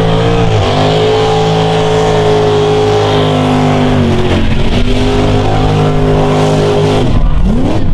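Mega truck's engine running hard at high revs as it churns through a mud pit. Its pitch dips briefly about half a second in, steps down a little around four seconds, and rises again near the end.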